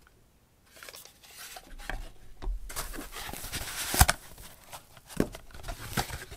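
Cardboard box packaging being handled and rummaged through on a wooden desk: rustling and scraping, a sharp knock about four seconds in, then a few lighter taps and clicks.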